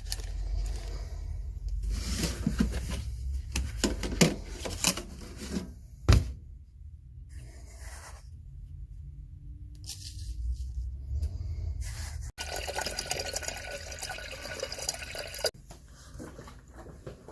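Coffee being made: clicks and handling noises with one sharp knock, then several seconds of water running into a coffee pot near the end.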